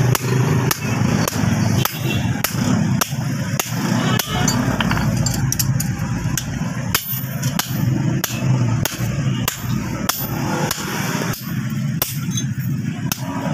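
Blacksmith's hammer striking steel on an anvil while forging an axe, a run of sharp blows at roughly two to three a second over a steady low hum.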